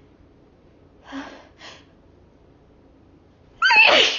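A woman's sharp gasping in-breaths, then a loud voiced sneeze near the end, set off by snorted chhinkni sneezing powder.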